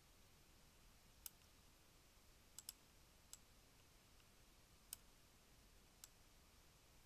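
Computer mouse clicking: about six faint, sharp clicks spread unevenly, two in quick succession near the middle, over a near-silent background.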